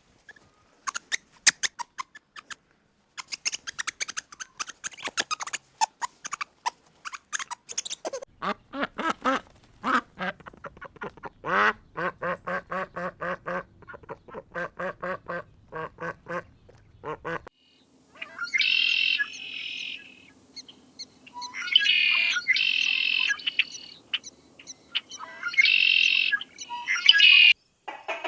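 Farm birds calling, edited clip after clip: many short sharp calls, then ducks quacking in rapid runs, then three louder, longer high-pitched calls over a faint steady hum.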